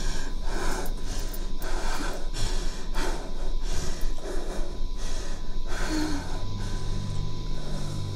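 A woman breathing hard in quick, rhythmic gasps, about two a second, fading out after about six seconds as low held music tones come in.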